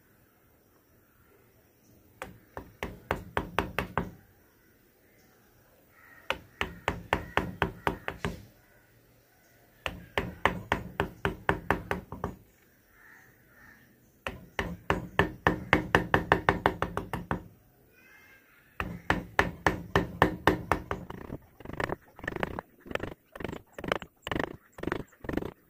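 Mallet tapping a narrow carving chisel into wood, in quick runs of about five or six taps a second separated by short pauses, the taps slower and more spaced near the end.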